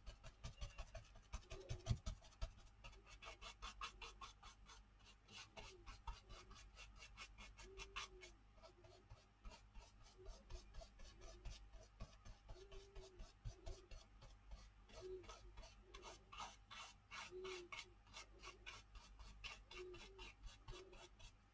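Stencil brush dabbing paint through a stencil onto paper: faint quick taps and scratches, several a second, thinning out in the middle and picking up again toward the end.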